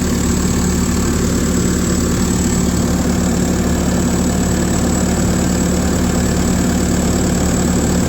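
Case 850M's diesel engine idling steadily, with the air-conditioning compressor running.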